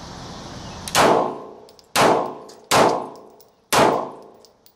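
Four pistol shots fired in quick succession, each a sharp crack followed by a long metallic ringing tail. The first comes about a second in and the rest follow at intervals of roughly a second or less.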